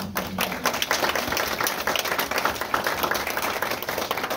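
An audience applauding, many hands clapping in a dense, steady patter that starts abruptly and eases slightly near the end.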